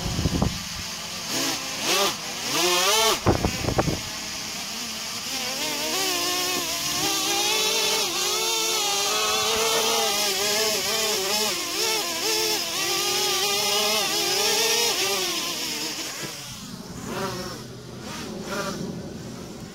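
Blade 200 QX quadcopter's motors and propellers whining in flight, the pitch wavering up and down as the throttle changes. There are a couple of sharp knocks in the first four seconds, and the whine fades out about sixteen seconds in.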